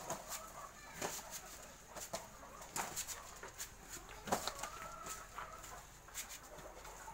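Irregular sharp knocks and snaps as green banana hands are handled and set down on the ground, about one or two a second, the loudest about four seconds in. Faint animal calls, like a chicken clucking, sound in the background.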